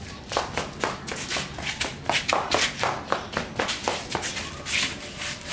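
Quick, irregular scuffing footsteps on concrete, several a second, from flip-flops and a dog's paws moving about together.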